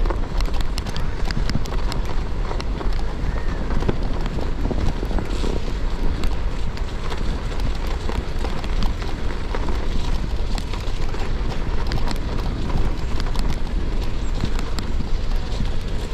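Gravel bike tyres rolling over a snowy, icy path, with a continuous crackle of small crunches and grit ticks and a low wind rumble on the microphone.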